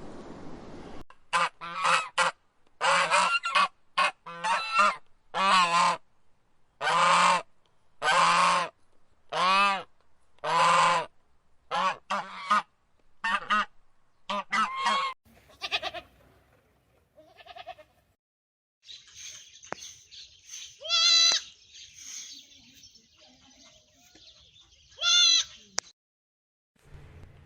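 Domestic waterfowl calling over and over: a run of about fifteen loud, evenly paced calls, then fainter calls. Later a steady hiss sets in, with two more loud calls over it.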